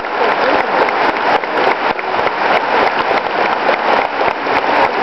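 Large crowd applauding: a dense, steady patter of many hands clapping at once.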